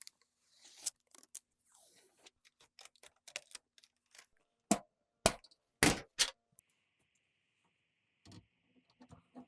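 Computer hardware being handled: a run of clicks and taps, four loud knocks about halfway through, then a steady hiss with a few light knocks near the end.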